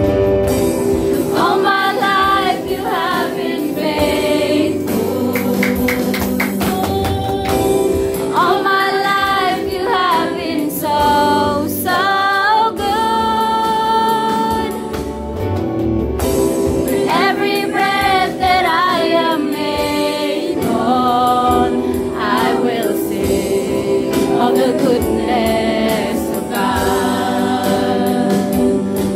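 Christian worship song sung by a group of four women on microphones, backed by electric guitar.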